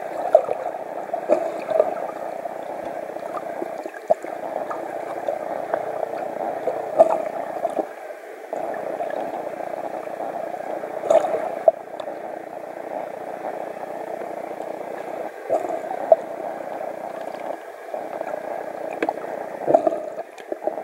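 Muffled underwater water noise: a steady watery rush, with scattered small clicks and knocks.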